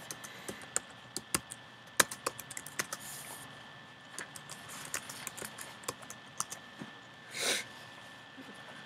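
Typing on a computer keyboard: irregular key clicks as a short search phrase is typed, with a brief hissing rush of noise about seven and a half seconds in.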